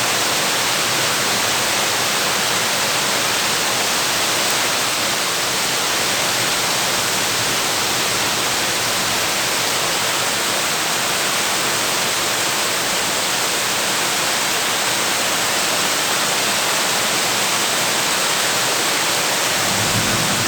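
Heavy downpour drumming on a tin roof: a dense, steady hiss of rain with no distinct drops standing out.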